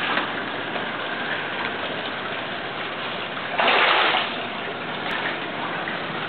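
Steady rushing water, with a louder surge of the same rush lasting under a second about three and a half seconds in.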